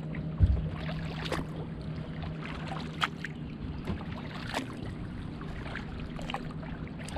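Kayak paddling: the double-bladed paddle dips and splashes, with water dripping off the blades in short splashes every second or so, over a low steady rush. One low thump about half a second in is the loudest sound.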